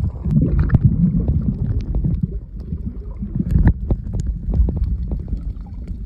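Muffled underwater sound picked up by a camera held below the surface: a low rumbling wash of moving water with scattered sharp clicks and crackles.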